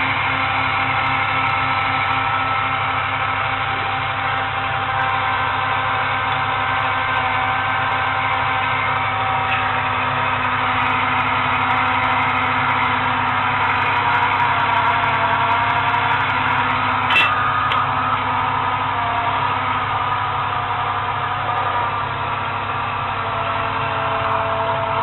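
Small battery-operated toy washing machine's electric motor running steadily, a whine whose pitch wavers slightly as it turns, with a single sharp click about two thirds of the way through.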